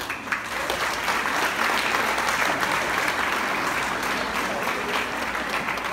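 Audience applauding, many hands clapping in a dense, steady patter that starts abruptly.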